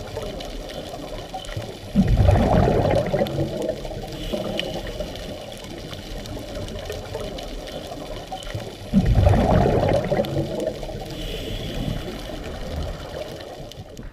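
Scuba diver breathing through a regulator underwater: two loud bursts of exhaled bubbles about seven seconds apart, with a steady underwater hiss between them.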